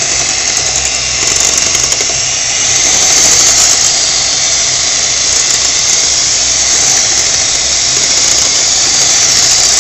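Electric hand mixer running steadily with a high motor whine, its beaters whisking batter in a bowl.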